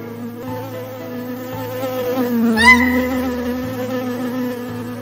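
Cartoon bee buzzing sound effect: a steady, slightly wavering drone, with one quick rising sweep about two and a half seconds in that is the loudest point.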